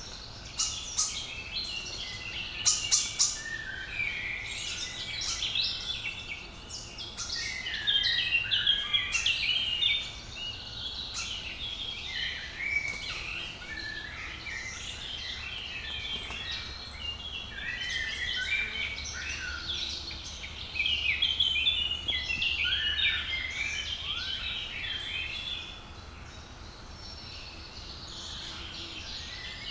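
Woodland songbirds singing and chirping over one another in a dense spring chorus, with a few sharp clicks about three seconds in.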